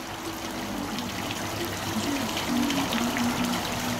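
Water splashing and trickling steadily down a tiered stone fountain into its basin, with a tune of held low notes playing underneath.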